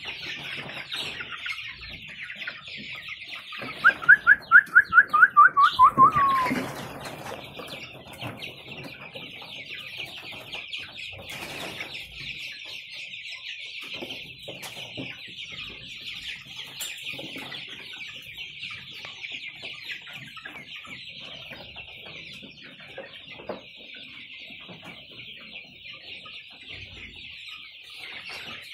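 A large flock of young chickens peeping and cheeping all at once in a steady high-pitched chorus. About four seconds in, a loud rapid run of about a dozen quick calls cuts through it for a couple of seconds, dropping in pitch at the end.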